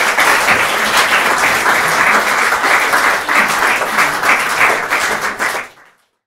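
Audience applauding steadily at the end of a lecture, with a dense clatter of many hands clapping; the applause fades out quickly near the end.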